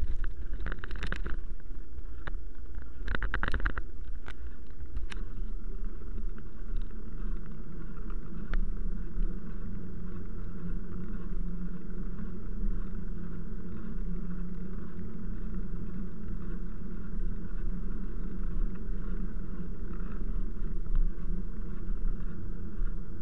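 Steady rumble of wheels rolling over wet paving, mixed with wind on the microphone. A cluster of rattling knocks comes in the first five seconds as the wheels cross rough cobbles, and there is a single click a few seconds later.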